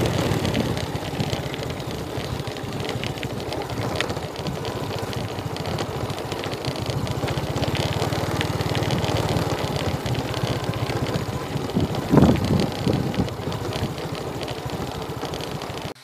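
Motorcycle engine running steadily as the bike rides along a rough dirt track, with a louder thump about twelve seconds in.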